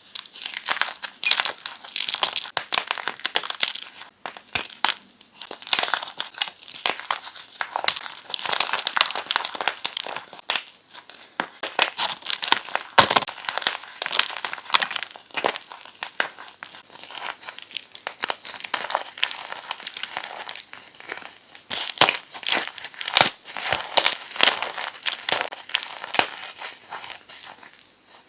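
Blocks of gym chalk being crushed, a continuous run of dry, crisp crunches and crackles with occasional sharper snaps.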